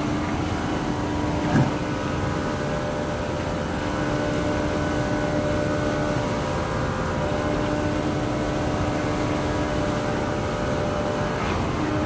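Vehicle engine and road noise while driving: a steady hum with a held engine tone. A short knock comes about a second and a half in.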